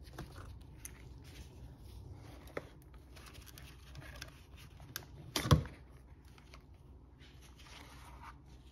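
Small plastic and metal clicks and rattles as an in-tank fuel pump assembly is taken apart with needle-nose pliers and by hand, with one louder sharp click about five and a half seconds in.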